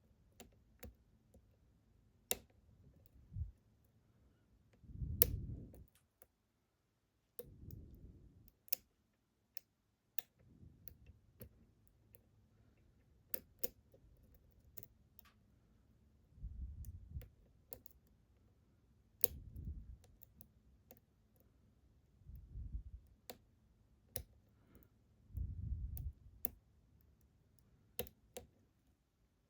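Scattered small clicks of a lock pick working the pins inside a Ruko 600 lock cylinder during picking, at irregular spacing. Several low, dull rumbles of the lock being handled come in between.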